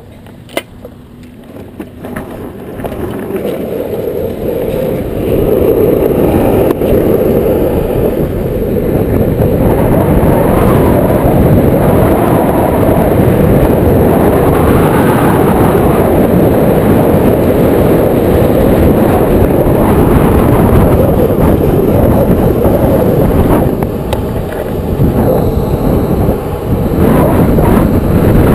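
Longboard wheels rolling fast on asphalt during a downhill run: a steady rushing roar that builds over the first five seconds as the board picks up speed, dipping briefly near the end.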